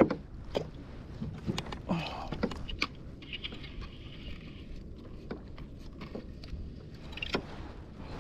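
Scattered clicks and knocks from handling a spinning rod and reel aboard a fishing kayak, with a short steady hiss from about three to five seconds in.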